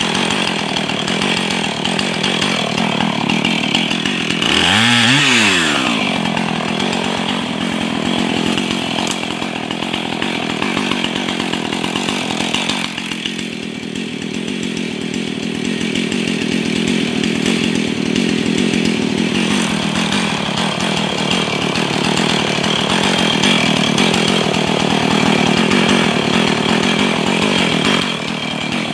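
Husqvarna 445 two-stroke chainsaw running hard and cutting wood, fitted with a new bar. Its pitch swings up and down briefly about five seconds in, then the note drops about halfway through and it runs on steadily under load.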